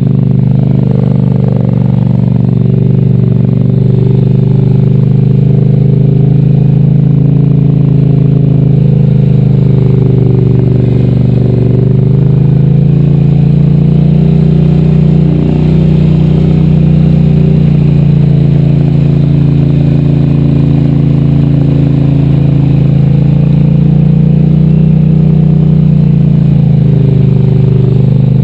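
Polaris Sportsman 850 H.O. ATV's twin-cylinder engine running steadily while the quad wades through a shallow river, its pitch rising about twelve seconds in and dropping back near the end.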